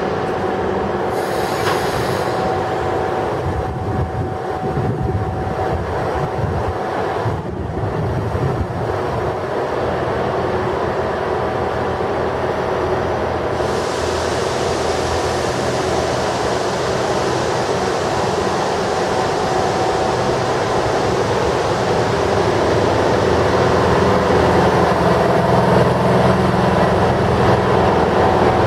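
DB class 103 electric locomotive running with a steady mechanical hum carrying several held tones. About halfway through a higher hiss joins in and the whole sound grows slowly louder as the locomotive moves close past.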